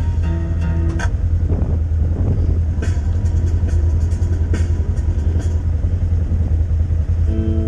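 Off-road vehicle's engine idling with a steady low rumble while parked. A few light clicks come through around the middle.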